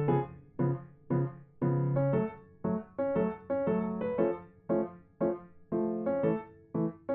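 Background piano music: a steady run of struck notes and chords, about two a second, each ringing and fading before the next.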